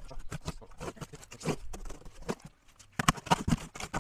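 Irregular knocks and taps from work on a wooden shed under construction, with a quick cluster of louder, sharper knocks about three seconds in.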